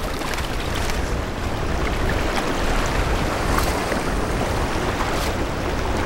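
Steady rushing outdoor ambience of wind and sea water over an exposed tidal flat, with a few faint ticks.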